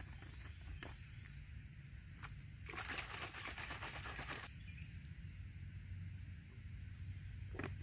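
Insects chirring steadily in the woods. A few small clicks of a Nalgene bottle's plastic lid come near the start. About three seconds in there is a short burst of sloshing and rattling as the bottle is shaken to mix in drink powder.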